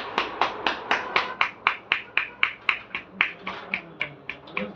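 A barber's hands slapping and clapping rapidly on a customer's head in a percussive head massage, at an even rhythm of about four to five strikes a second.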